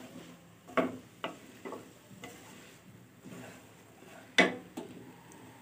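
A spoon stirring boiled cauliflower florets frying in masala in a pan: a few sharp clacks of the spoon against the pan, the loudest about four and a half seconds in, over faint sizzling.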